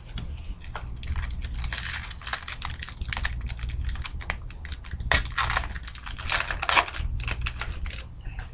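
Foil trading-card pack wrapper being torn open and crinkled by hand: a run of short crackling rips, loudest about five and six and a half seconds in, over a steady low hum.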